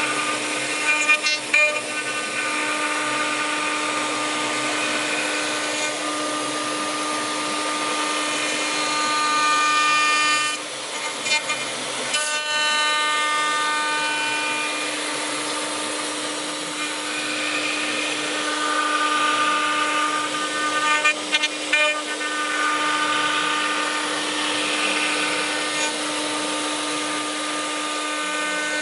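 CNC router spindle running and its cutter routing wood: a steady whine with higher tones that swell and fade as the cut goes on, and a few short clicks.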